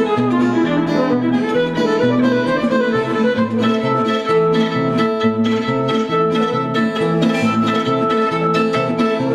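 Violin and guitar playing an instrumental passage: a violin melody over plucked guitar.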